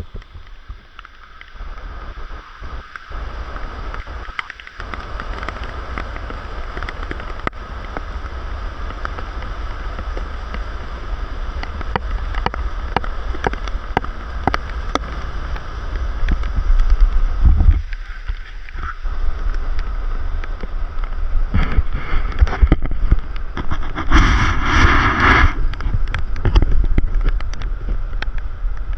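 A vehicle travelling along, its low rumble steady, with wind buffeting the microphone. A louder rushing burst lasts about a second and a half, some 24 seconds in.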